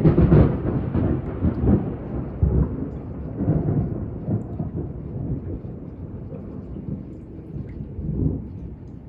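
A thunderclap: a sudden loud crack, then a long rolling rumble with crackles that fades over several seconds, swelling again briefly near the end.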